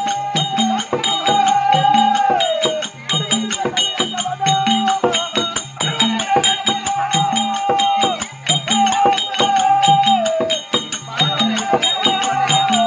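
Therukoothu street-theatre accompaniment: a melody of long held notes that glide down at their ends, over a steady drum beat of about two strokes a second and sharp, bright percussion strokes.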